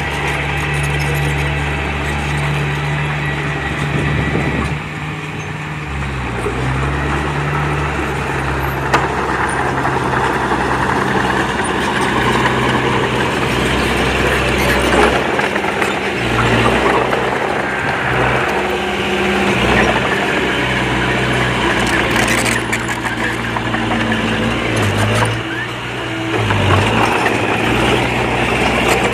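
Diesel engine of heavy earthmoving machinery running steadily, its low note shifting up and down in pitch several times.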